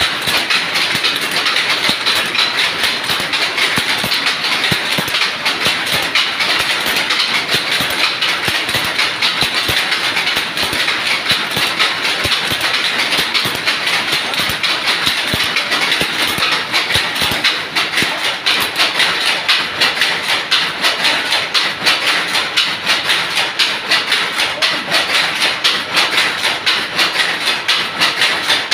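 Power loom weaving fine mesh, running steadily. Its beating-up makes an even, rapid mechanical clatter that repeats several times a second.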